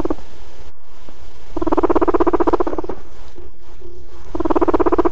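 Guinea pig rumbling: a rapid, pulsing purr-like call in bouts of about a second and a half, the sound adult guinea pigs make when put together and interested in a mate.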